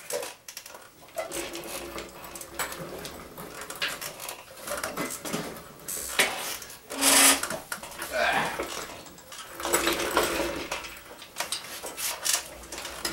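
A rag scrubbing the cylinder bores of a bare engine block: irregular rubbing strokes and light knocks against the metal, with a few louder swishes past the middle.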